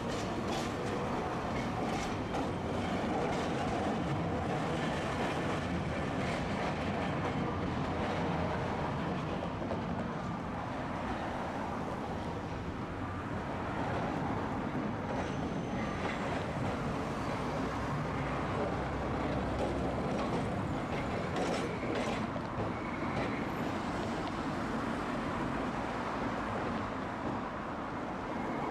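Tosaden streetcar running on street track: a steady rumble with occasional clicks.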